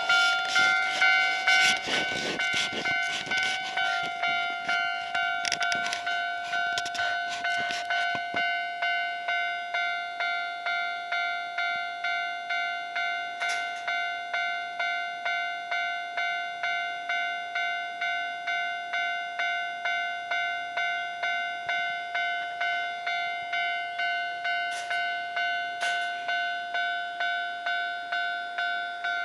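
Japanese railway level-crossing warning bell ringing its steady, repeating electronic 'kan-kan' tone, each strike fading before the next. A dense clatter runs under it for about the first eight seconds.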